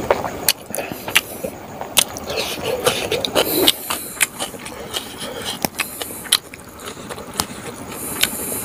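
A person eating by hand, close-miked: wet chewing and lip-smacking with irregular sharp clicks, a few a second, as rice and smoked pork are worked in the mouth and fingers.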